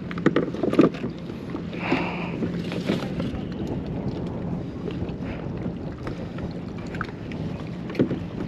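Scattered knocks and rustles from a sheepshead being handled in a rubber-mesh landing net against a plastic kayak, clustered in the first few seconds and again near the end, over a steady low hum and wind on the microphone.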